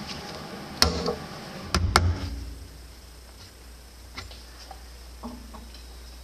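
Air compressor running, then its drive belt comes off with sharp slaps about one and two seconds in. The compressor pump's running note stops, leaving only a low hum and a few faint ticks.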